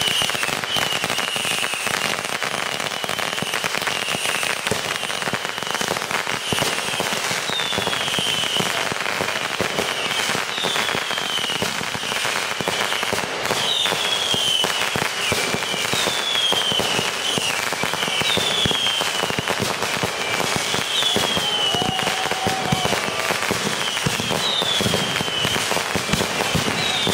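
Finale of consumer fireworks, with missile bases and cakes firing: a dense, continuous crackling and popping. From about a third of the way in, a short falling whistle sounds every second or two.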